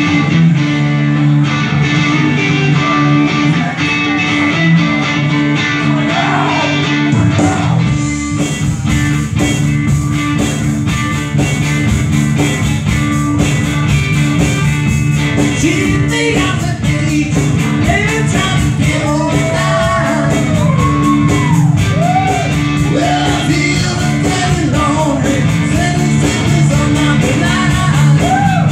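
Live rock-blues band playing: electric bass, electric guitar and a drum kit, the full drum beat filling in about eight seconds in, with a man singing over the second half.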